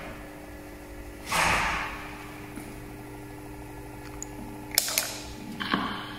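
A baitcasting reel spool being handled and fitted to a bearing test rig: a rustle about a second and a half in, then two sharp metallic clicks and a small clatter near the end as the spool shaft is seated in the tester's chuck, over a steady machine hum.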